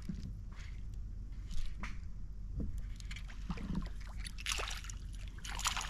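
A small hooked snapper splashing at the water's surface as it is reeled in to the kayak, the splashes coming thickest near the end. A few light knocks and clicks in between.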